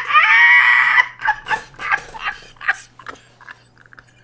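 A man's loud, high-pitched shriek of laughter, followed by a string of short laughs, a few a second, that die away.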